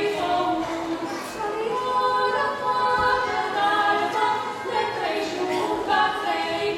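Two women singing a Romanian Christmas carol (colindă) unaccompanied, holding long notes.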